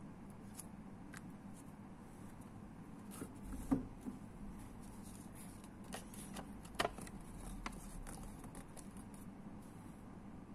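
Hands handling a plastic wall switch and unfolding a paper instruction leaflet: scattered light clicks and paper rustles, with two louder knocks about four and seven seconds in, over a steady low hum.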